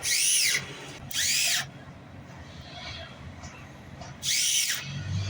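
Power tool run in three short bursts, its whine rising and then falling in pitch each time.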